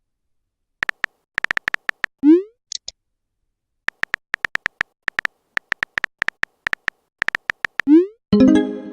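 Phone keyboard typing clicks in two quick runs, each ending with a short rising swoosh as a text message is sent, then a brief pitched notification tone near the end.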